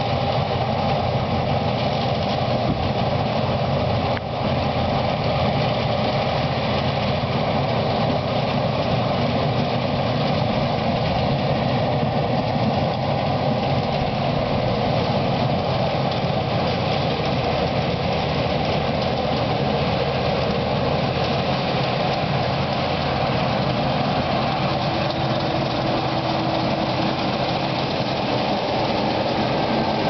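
Claas Lexion 580 combine harvester at work, its engine and threshing machinery running in a steady drone while it unloads grain into a tractor-drawn trailer running alongside.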